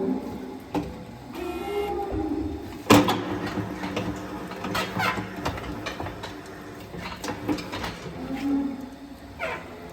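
Irregular knocks and clatter, with one sharp bang about three seconds in.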